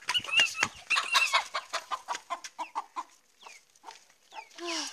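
Chickens squawking and clucking in alarm as a dog goes for a chick and the hen fights it off: a quick string of short calls with a few knocks early on, and a louder drawn-out call near the end.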